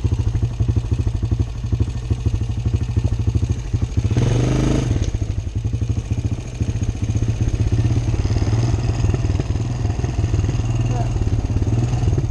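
Honda Recon ATV's single-cylinder four-stroke engine running steadily as it rides, with a brief louder rush of noise about four seconds in.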